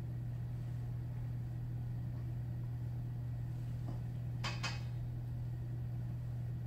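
Steady low hum of a kitchen extractor hood fan, with a couple of light clinks of a utensil against a small dish about four and a half seconds in.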